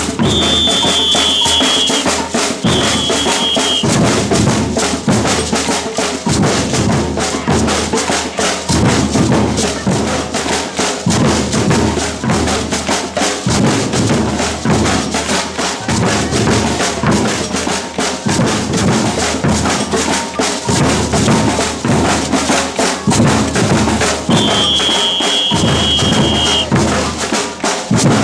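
Batucada samba percussion group playing a steady, driving groove, with bass drums and snare drums. A high whistle sounds twice near the start and once more near the end, in long held blasts.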